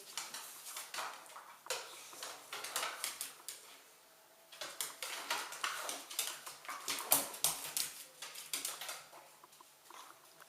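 Staffordshire Bull Terrier puppy and older dog playing roughly, a rapid run of short scuffling, huffing noises, with a short lull about four seconds in before a second run.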